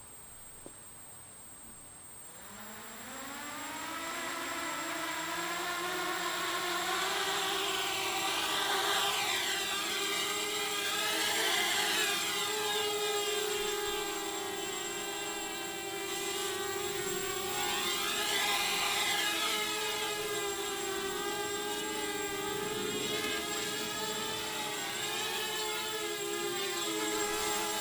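Mini racing quadcopter's motors and propellers spinning up about two seconds in, then running with a whine that wavers and swings up and down in pitch as the throttle changes. The propellers are not yet balanced, and it can be heard.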